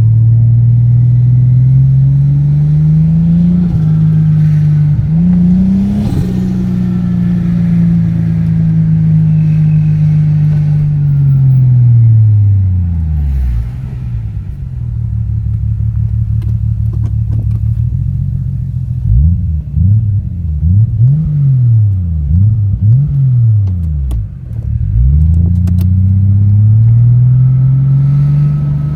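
Toyota Supra turbo engine through an HKS straight-through cannon-muffler exhaust, with a deep note. It pulls up in revs, briefly dips and climbs again, then falls slowly back to idle. After that come several quick revs up and down, and it climbs once more near the end. The engine has a cylinder misfire that the owner suspects comes from a blocked injector.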